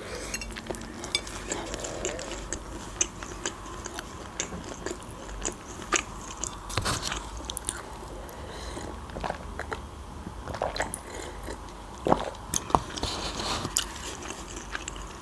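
Close-up eating: biting into and chewing a shawarma wrap, with many short wet mouth clicks and smacks, and a sip of broth from an instant noodle cup about halfway through.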